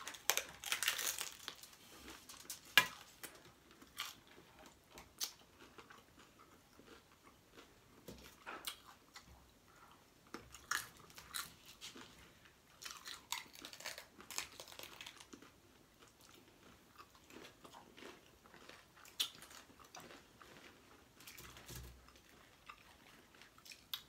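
Crunchy bites into a chicken taco in a hard Doritos-flavoured shell, followed by chewing. A burst of crisp crackling comes with the first bite, then one sharp crack a few seconds in. Scattered crunches follow as the shell is chewed.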